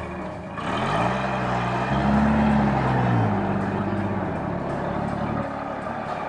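GMC CCKW 353 truck's straight-six petrol engine revving as the truck pulls through mud: the pitch rises for about two seconds, falls back, then holds steady under load.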